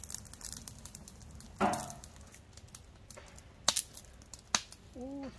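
Wood fire crackling, with scattered sharp pops and cracks and a brief louder burst of noise about a second and a half in.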